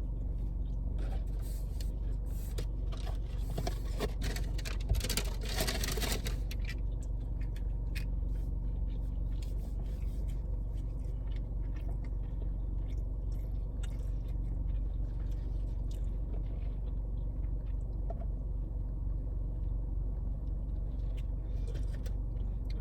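Close-up eating sounds: chewing, small mouth clicks and scraping rustles, busiest a few seconds in, over a steady low hum inside the car.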